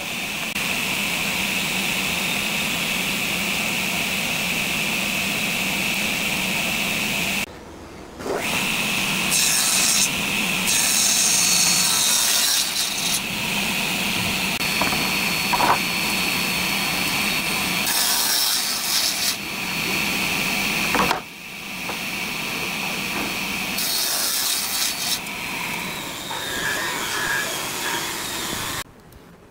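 Sliding-table circular saw running with a steady whine as its blade rips a wide hardwood board, the cut growing louder and hissier several times as the wood feeds through. The sound breaks off briefly twice.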